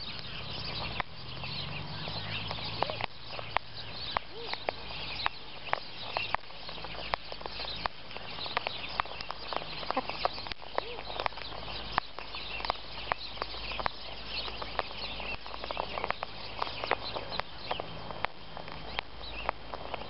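Sulphur-crested cockatoos feeding on birdseed close to the microphone. Irregular sharp taps of beaks pecking at the seed and ground come about two or three a second, with brief high squeaky calls between them.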